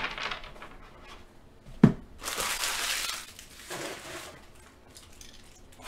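Empty foil trading-card pack wrappers being crumpled and cleared off the table, with a sharp thump about two seconds in followed by about a second of loud crinkling, then a softer rustle.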